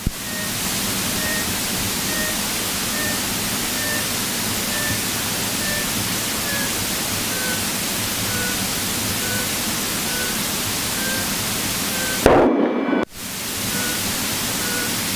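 Steady hiss of static on the aircraft's radio and intercom audio, with faint short beeps about once a second. About twelve seconds in it gives a brief louder burst and cuts out for a moment before the hiss returns.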